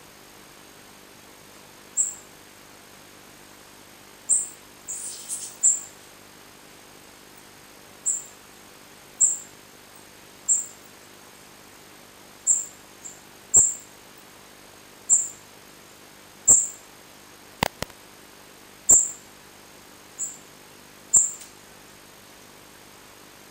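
Songbird nestlings in the nest giving single short, very high peeps, one every second or two, with a brief buzzy call about five seconds in. A sharp click sounds near the end.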